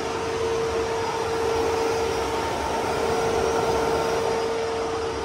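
A Tesla electric car's cooling fans running flat out, an insanely loud steady rush with a steady hum, while the battery is being discharged for Tesla's battery health test.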